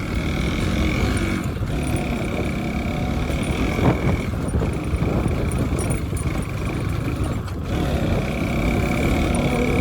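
Motorcycle riding along, heard from a phone on the rider's helmet: steady wind rush and road and engine noise, with a steady high whine that cuts out briefly three times.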